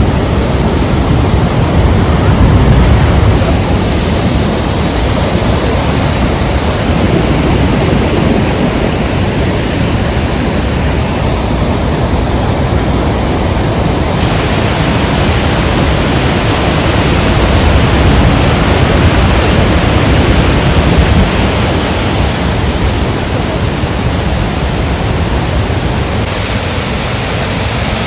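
Rhine Falls waterfall: a loud, steady rush of falling water. Its tone shifts abruptly about halfway through and again near the end.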